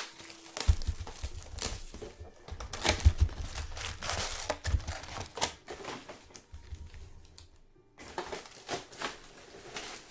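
Plastic wrapping on basketball trading card boxes and packs crinkling and tearing as they are opened, with irregular crackles and sharp clicks and a short lull near the end.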